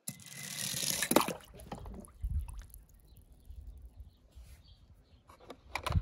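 Die-cast toy car dropping into water: a splash lasting about a second at the start, then low sloshing of water and a few faint knocks.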